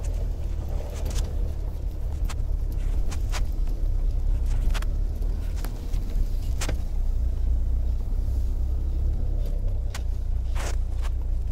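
Car driving slowly up a snow-covered road, heard from inside the cabin: a steady low engine and road rumble, with scattered sharp clicks and knocks at irregular intervals.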